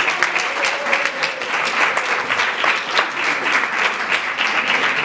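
Audience applauding steadily: many hands clapping together in a dense, continuous patter.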